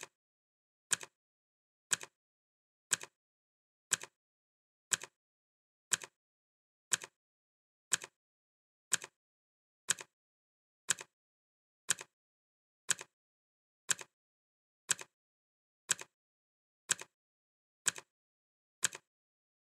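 Clock ticking steadily, one tick a second, each tick a sharp click followed closely by a fainter second click.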